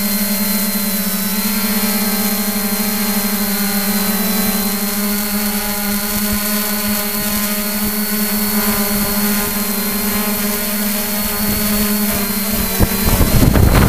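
Multirotor camera drone's motors and propellers humming steadily as it descends low over grass. About thirteen seconds in, a louder rough noise breaks in as it comes down into the grass.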